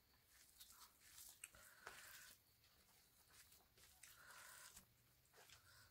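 Quiet, irregular wet squelching and clicking of a bare hand mixing and squeezing rice with pork gravy on a plate.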